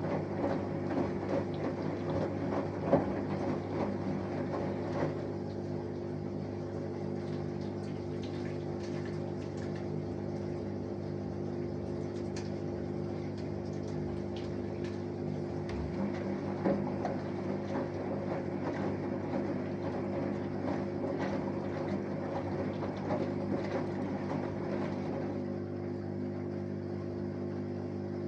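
Samsung Eco Bubble 6.5 kg washing machine running its wash cycle: the inverter motor hums steadily as the drum turns, with water and laundry sloshing in the drum. There is a sharp knock about three seconds in.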